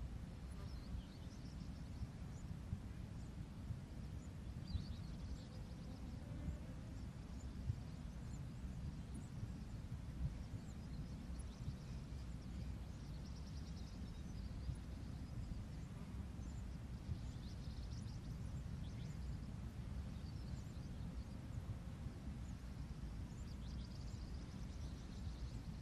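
Outdoor ambience: a steady low rumble with faint, high chirps of small birds recurring every few seconds.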